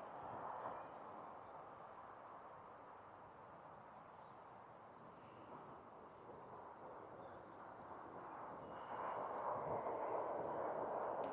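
Faint open-air countryside ambience: a steady rushing noise that swells about nine seconds in, with a few faint, short distant bird calls.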